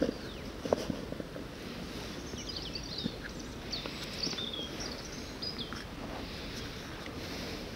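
Small birds chirping in short high calls, several in the middle stretch, over a steady outdoor background hiss. A few faint clicks come from fishing tackle being handled.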